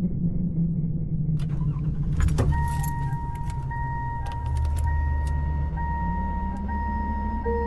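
Car sounds opening a song: keys jangling and a sharp click about two seconds in, then a car engine running low with a steady high warning chime tone over it.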